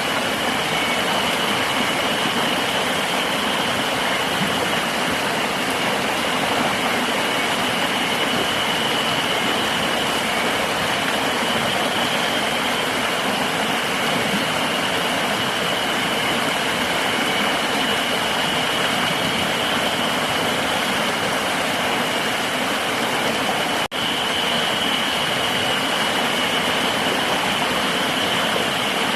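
A river's water rushing steadily, with a continuous high-pitched insect drone over it. The sound drops out for a split second about twenty-four seconds in.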